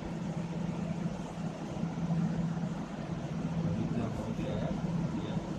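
A steady low mechanical hum from a running motor in the background.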